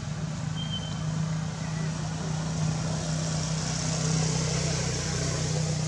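A steady low mechanical hum, like a motor running, over a faint even hiss of background noise.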